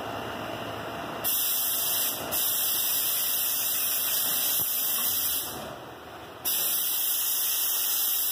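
A loud, steady hiss that starts suddenly about a second in, drops out briefly twice and comes back, over a low steady hum before it begins.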